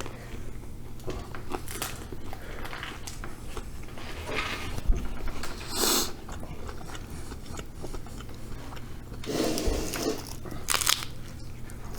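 People biting into and chewing tacos close to the microphone: a run of short, crisp clicks with a few louder bites, over a faint steady hum.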